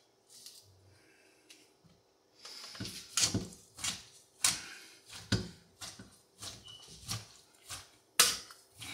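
Potato masher pressing into thawed chunks of pineapple, mango, papaya and orange in a pot: a string of irregular strokes, about one or two a second, starting about two and a half seconds in.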